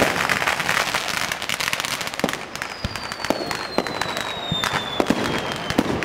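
Fireworks going off at ground level: a dense crackle of rapid pops for the first couple of seconds, then scattered sharp cracks and bangs. A thin high whistle slowly falls in pitch through the middle.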